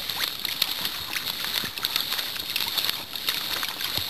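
Small waves lapping and splashing against a kayak hull, with many quick, irregular splats over a steady hiss.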